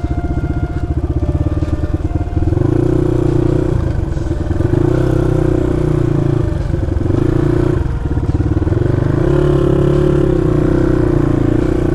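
Dirt bike engine running at low revs on a rough trail, its note rising and falling a few times with the throttle.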